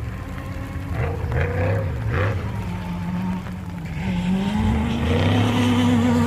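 Off-road race car engine revving, rising and falling in pitch, then climbing about four seconds in and holding high as it gets louder.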